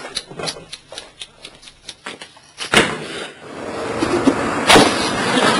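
Fast, even knife chops on a cutting board, about six a second for two and a half seconds, then a single louder knock. After that, a steady background hiss with one more thump near the end.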